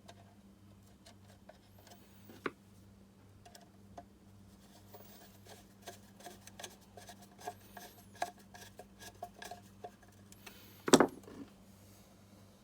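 Hands working on a plastic ECU case and its parts: scattered light clicks and taps, then one louder knock about eleven seconds in, over a faint steady hum.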